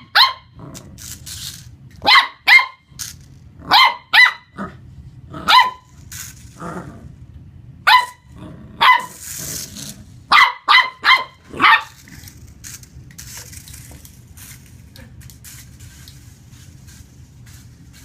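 Welsh Corgi puppy barking: about a dozen short, high-pitched barks, often in pairs or quick runs of three or four. The barks stop about twelve seconds in, leaving a low steady hum underneath.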